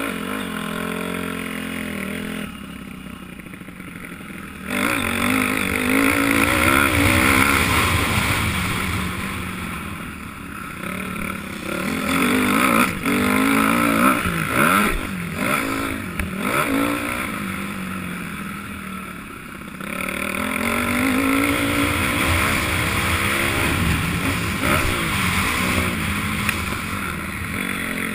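Honda 250 motocross bike engine being ridden hard, revving up and easing off again and again as the throttle opens and closes. It eases off about two seconds in and opens up sharply near five seconds, with further lulls around ten and nineteen seconds. It is heard from the rider's own camera on the bike.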